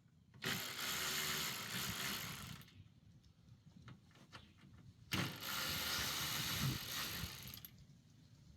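Ratchet wrench clicking rapidly in two spells of about two and a half seconds each, backing out the bolts that hold the truck's factory grille to the frame.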